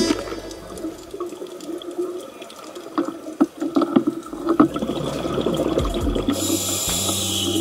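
Underwater sound on a diver's camera: scattered clicks and bubbling water, then a short rush of hissing bubbles near the end, typical of a scuba diver exhaling through a regulator.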